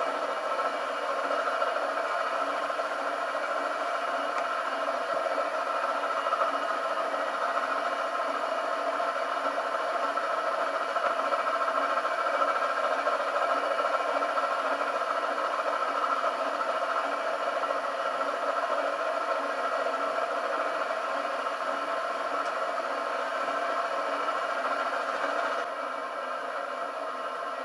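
NGF-110 benchtop milling machine driving a homemade slotting head as it cuts internal gear teeth in steel: steady mechanical running with a clattering, scraping rattle. It drops a little in level near the end.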